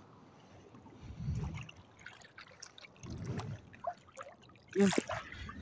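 Shallow seawater lapping and sloshing around a wading angler, with scattered small clicks. A short, louder sound comes near the end.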